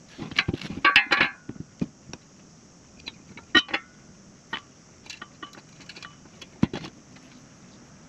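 Metal parts and hardware clinking and rattling as they are handled, in irregular bursts of clatter, the busiest about a second in and about three and a half seconds in, with a sharp knock near the end.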